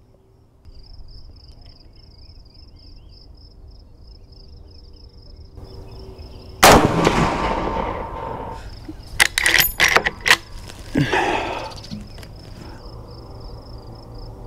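A single shot from a Marlin 336 lever-action rifle in .30-30 Winchester, a sharp crack with a long fading echo, about seven seconds in. Some three seconds later comes a quick run of metallic clicks as the lever is worked to eject the spent case and chamber the next round.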